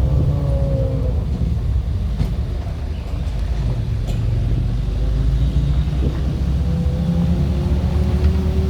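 4x4 vehicle's engine running under load with a strong low rumble, its note dipping about a second in and climbing again near the end as the revs change.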